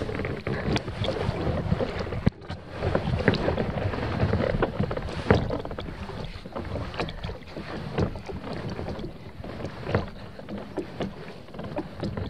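Kayak paddling on a river: paddle blades dipping and splashing, with water sloshing against the hull. Irregular sharp splashes stand out over a steady wash of water.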